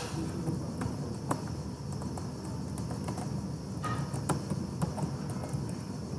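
Computer keyboard keys clicking in short, irregular taps as someone types, over a steady low background hum.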